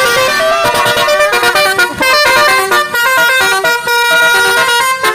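Telolet horn module (basuri type) playing a melody: a quick run of stepped horn notes, several pitches sounding together and changing every fraction of a second.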